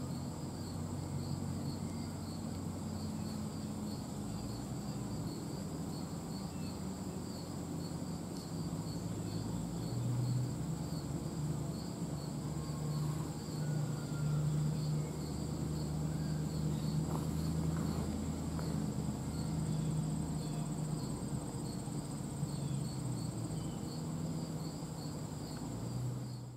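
Outdoor ambience of late-summer insects: a steady high trill and a regular pulsing chirp of crickets. Underneath is a low rumble that swells from about ten seconds in.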